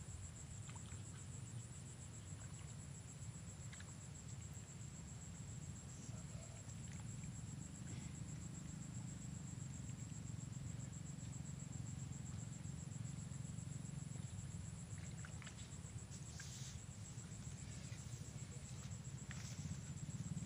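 Insects chirping in a steady, high-pitched, pulsing chorus over a low steady rumble, with a few faint ticks near the end.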